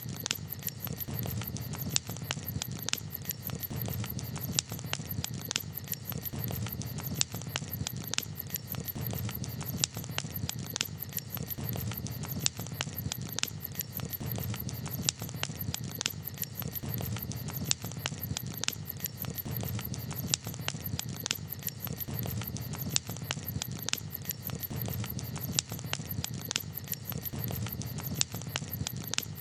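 Campfire crackling, with frequent sharp, irregular pops and snaps of varying loudness over a low steady rumble.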